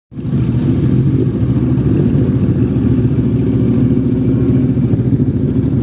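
Yamaha YZF-R6 inline-four idling through an Akrapovic megaphone exhaust, a steady, deep, rapid pulsing with no revs.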